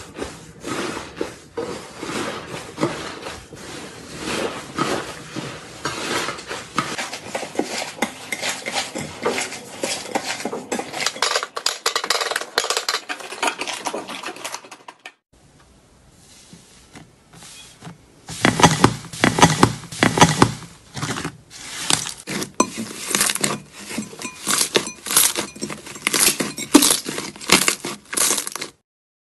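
Hands squeezing and pressing thick slime, making a dense run of crackling, popping clicks. There is a brief quiet spell about halfway, then louder, sharper pops as another slime is pressed flat.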